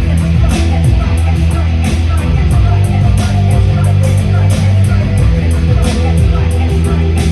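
Rock band playing an instrumental passage at rehearsal: distorted electric guitar over a loud bass line, with a steady cymbal beat driving it.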